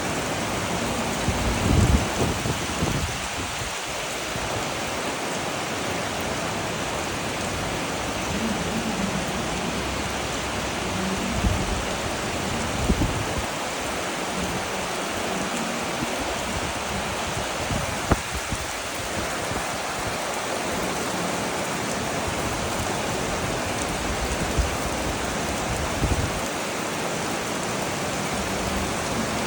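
Heavy rain pouring down steadily, a dense even hiss, with a few brief low thumps here and there.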